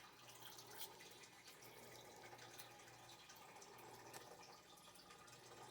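Near silence: faint room tone with a few soft, faint ticks.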